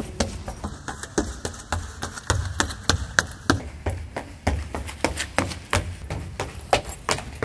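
Quick hard-soled footsteps clicking on stone stairs and floor, about four steps a second, over a low pulsing rumble.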